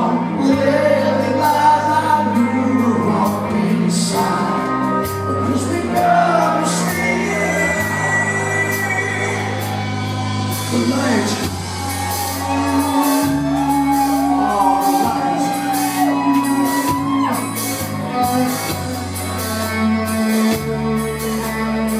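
Live rock band playing: a singing voice over bass, drums and guitar, loud, with the echo of a large room.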